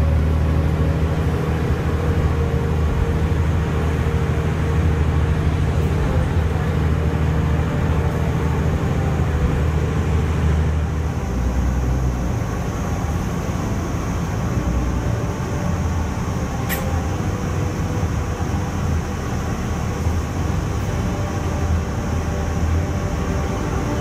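Steady low rumble of a moving road vehicle, engine and road noise together. The rumble changes about eleven seconds in, and there is one sharp click about two-thirds of the way through.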